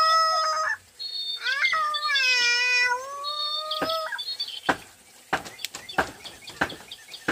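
Two long, high wailing cries, each about a second and a half, at the start and again from about a second and a half in. Sharp clicks and knocks follow in the second half.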